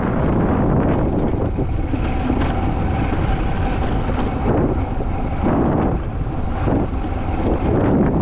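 Alpine coaster sled running along its steel rail: a steady rumble of wheels on the track, with wind buffeting the microphone and a faint steady whine for a few seconds in the middle.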